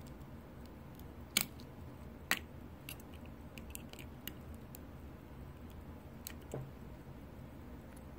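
Small sharp clicks of metal tools and parts while a Waltham pocket watch is taken apart: two louder clicks in the first two and a half seconds, then scattered lighter ticks and one more click about six and a half seconds in.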